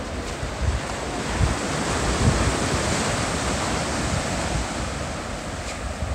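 Low surf breaking and washing up a flat sand beach, a steady hiss that swells about two seconds in and then eases off, with wind buffeting the microphone in low gusts.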